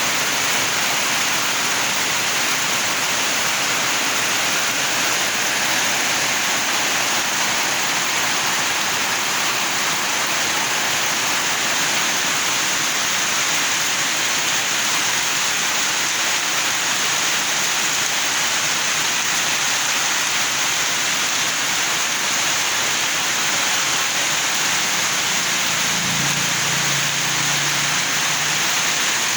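Heavy tropical downpour: a steady, dense hiss of rain pouring down without let-up. A faint low hum comes in briefly near the end.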